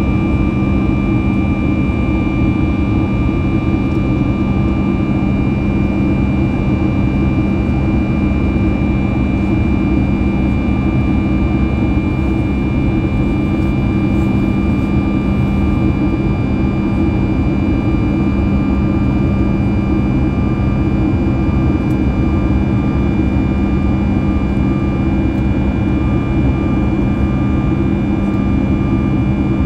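Boeing 737 MAX 8 cabin noise in flight, heard from inside the cabin at a window seat: the CFM LEAP-1B turbofan engines running steadily, an even low rumble with a steady hum and thin whining tones over it.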